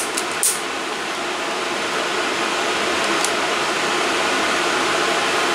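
A long-nosed utility lighter clicking as it lights solid fuel tablets under a camp stove: three sharp clicks in the first half-second and one more about three seconds in, over a steady fan-like background hum.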